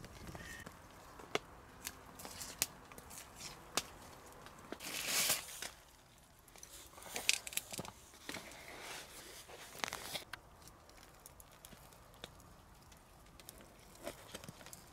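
Camp meal handling sounds: scattered clicks and scrapes of utensils and crinkling or tearing of paper or bread, with the longest, loudest tearing rasp about five seconds in.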